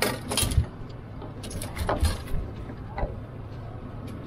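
Knocks and clatters of gear being handled in a fishing boat, several sharp ones in the first second and another cluster around two seconds in, over the steady low hum of the boat's motor running while trolling.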